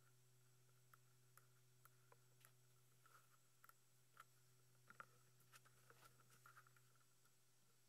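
Near silence: faint, irregular computer keyboard clicks over a low steady hum.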